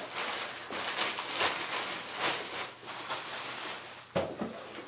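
Thin plastic shopping bags rustling and crinkling as hands rummage through them, with a sharper knock about four seconds in.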